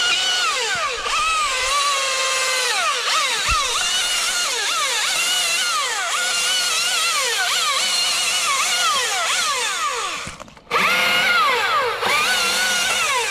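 Husqvarna T540i XP battery-powered top-handle chainsaw cutting: its electric motor whine repeatedly sags in pitch as the chain bites into the wood and rises again as it frees up. It cuts out briefly about ten and a half seconds in, then spins straight back up.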